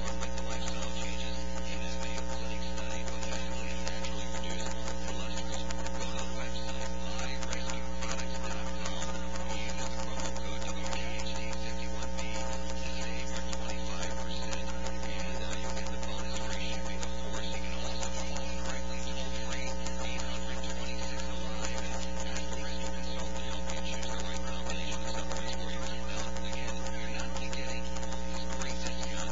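Steady electrical mains hum with a hiss over it, unchanging in pitch and level.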